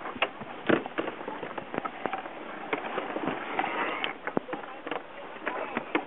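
Irregular clicks, knocks and crackles from gear and sail handling aboard a small racing sailboat, over a steady rush of wind and water.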